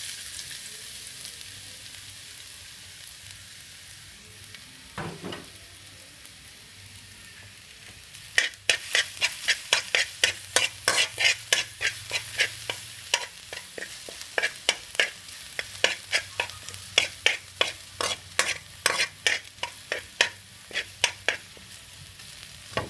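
Minced garlic sizzling in hot oil in a metal wok, the hiss strongest at first and then easing. From about eight seconds in, a metal spoon scrapes and taps against the wok about three times a second as the garlic is stirred.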